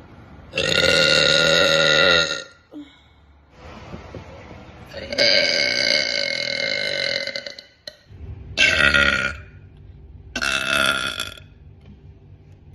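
A woman belching loudly four times: two long, drawn-out burps of about one and a half and two and a half seconds, then two short ones in quick succession near the end.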